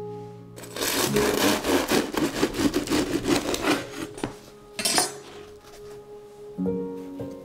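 A bread knife sawing through the crisp crust of a pizza bianca on a wooden cutting board: a quick run of rasping back-and-forth strokes for about three seconds, then one more short crackling cut about a second later. Light background music returns near the end.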